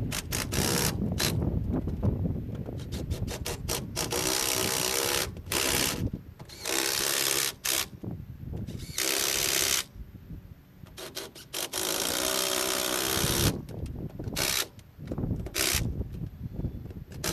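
A power tool run in four short bursts of one to two seconds each, with clicks and knocks between the bursts.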